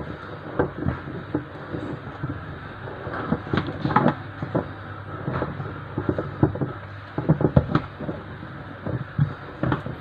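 Irregular knocks and taps from a rubber spin-dryer seal being pressed and worked by hand into its glued hole in a washing machine's plastic tub, with a cluster of louder knocks a little past halfway.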